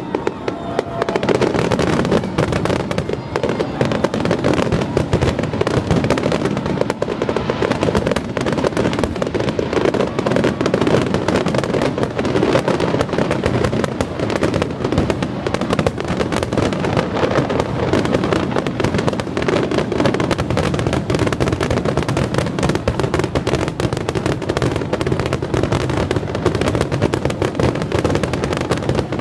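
Professional aerial fireworks in a rapid, unbroken barrage, with many shells bursting and crackling over one another with no pause: the dense finale of a display.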